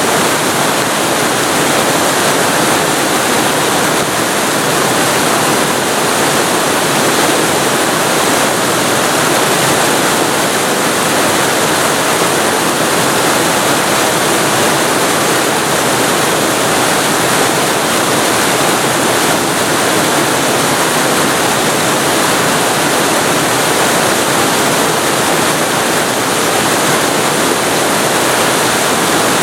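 Waterfall recorded close up: a loud, steady rush of falling water with no breaks or changes.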